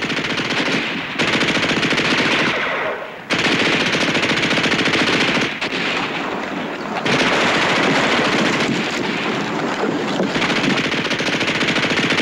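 Machine-gun fire in long, rapid, continuous bursts. It breaks off sharply a little over three seconds in, resumes at once, eases for a moment around six seconds and then picks up again.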